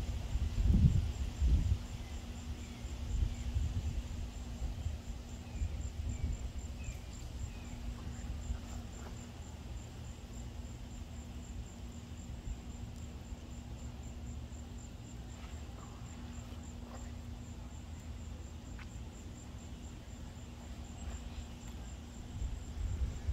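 Insect chirping steadily in a fast, even, high-pitched pulse. Under it is a low rumbling noise that is strongest in the first two seconds.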